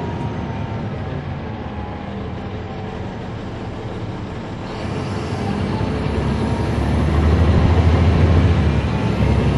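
Caterpillar C13 ACERT diesel engine of a NABI 40-ft transit bus, heard from on board. It runs steadily at first, then grows louder from about halfway in as the bus picks up power, with a strong low engine drone.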